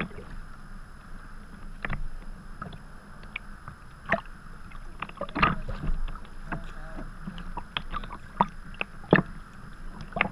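Sea kayak paddle blades dipping into the sea and splashing on each stroke, with water sloshing against the kayak's hull. The splashes come irregularly, the loudest about five and nine seconds in.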